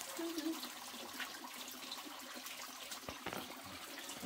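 Running water, a steady, even rush with no letup.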